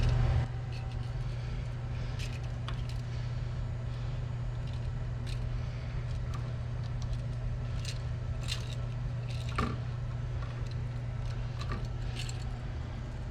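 Scattered light clicks and scrapes of an electrical outlet and its wiring being handled and pushed into a cramped gang box, over a steady low hum.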